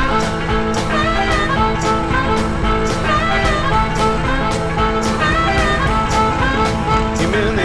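A blues-rock soundtrack song in an instrumental passage between sung lines, with a steady drum beat about twice a second under held, bending melody notes.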